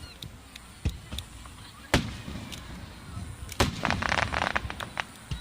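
Aerial fireworks bursting: three sharp booms about a second apart, the last followed by a short burst of dense crackling.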